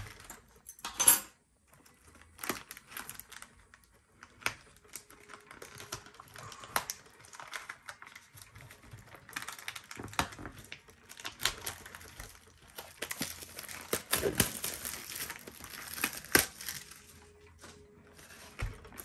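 Plastic shrink wrap being torn and peeled off a Pokémon TCG booster box: crinkling cellophane with many small clicks and taps. There is a sharp tap about a second in, and the crinkling is densest over a few seconds past the middle.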